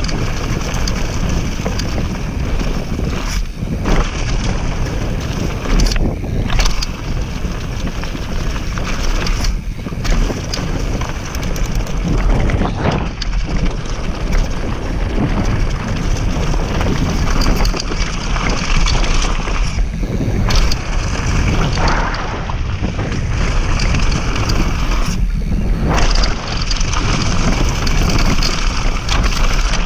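Wind buffeting the microphone and the Norco mountain bike's tyres rolling over a dry dirt-and-gravel trail, a loud continuous rush that drops briefly every few seconds.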